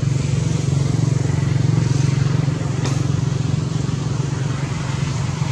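A motor running steadily with a low, even drone, and one short click about three seconds in.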